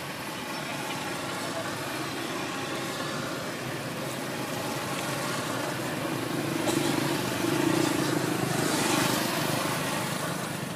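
A motor vehicle engine running over steady outdoor background noise, growing louder for a few seconds past the middle and easing off near the end.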